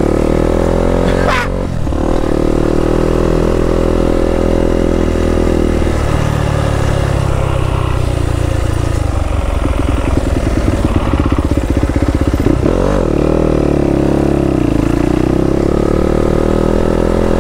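Yamaha YZ250F dirt bike's single-cylinder four-stroke engine running under way, its pitch rising and falling with the throttle. About six seconds in it drops to a low, slow chug before revving back up near the end.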